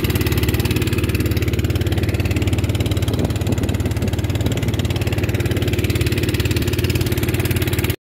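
A small boat's motor running steadily, a low hum with a fast, even pulse.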